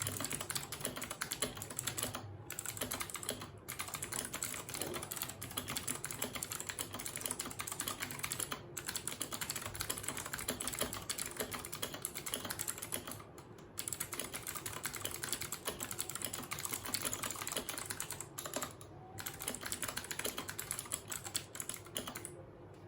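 Royal Kludge RK68 mechanical keyboard with stock RK Blue clicky switches and stock stabilizers being typed on rapidly and continuously. The typing breaks off briefly a few times and stops just before the end.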